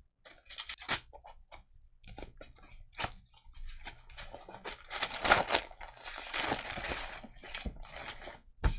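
Paper rustling and crinkling as loose sheets and cards of paper ephemera are handled and shuffled, in irregular short rustles and taps that grow busier about halfway through.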